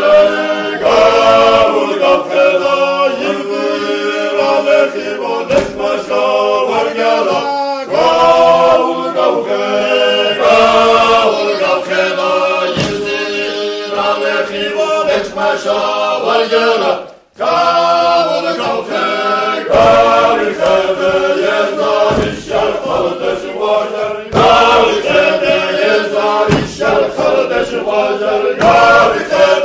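A cappella choir singing a chant in several voice parts with held notes, with a brief break a little past halfway.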